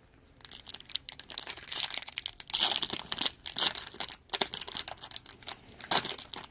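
Wrapper of a Topps baseball card pack crinkling and tearing as it is ripped open by hand, in a dense run of crackles with a sharp louder crackle near the end.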